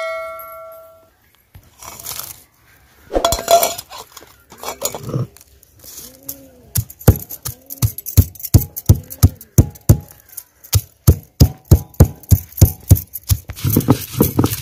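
A short metallic clink rings out at the start. Then a cylindrical stone roller pounds garlic cloves and ginger against a flat stone grinding slab (sil-batta) in a steady run of sharp knocks, about three a second. Near the end it gives way to a rhythmic scraping as the roller starts grinding back and forth over the slab.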